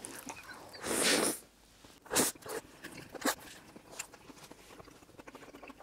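A person eating a hamburger: quiet chewing and mouth noises, with a soft rustle about a second in and a few short, sharp smacks.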